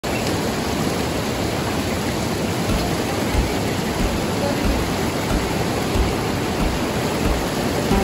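Steady rush of fast-flowing water, with a low rumble that swells and eases.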